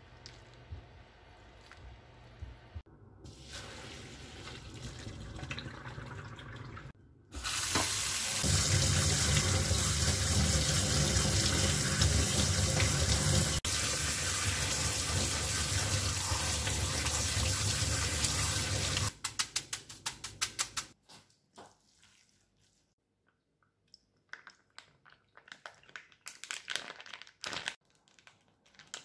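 Kitchen tap running hard onto cooked naengmyeon noodles in a stainless steel mesh strainer in a steel sink, the noodles being rinsed by hand in cold water. The rush cuts off suddenly about two-thirds of the way in, followed by a few drips and taps and then plastic crinkling from a broth pouch near the end.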